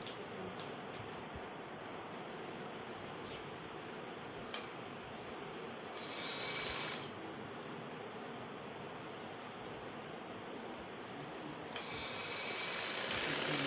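Sewing machine stitching a trouser seam in two short runs, one about six seconds in and a longer one from about twelve seconds on, over a steady background hiss and a thin high whine.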